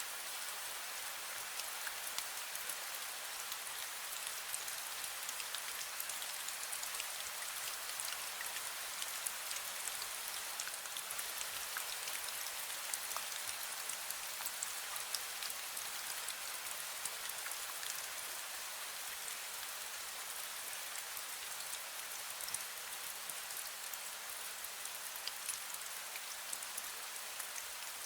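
Steady light rain, fine drizzle falling with a constant soft hiss and many small drop ticks.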